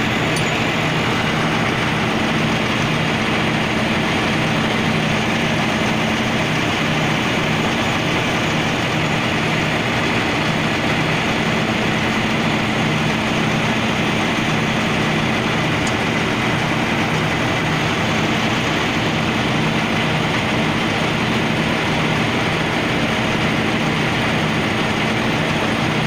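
Engine-driven coal-exploration drilling rig running steadily at a constant speed: a low engine note under a wide mechanical noise that does not change.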